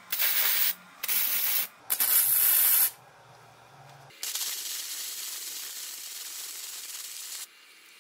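MIG welder laying short welds on a small steel tube fixture: three loud bursts of arc crackle in the first three seconds, each stopping cleanly. From about four seconds in comes a quieter steady hiss for about three seconds that cuts off suddenly.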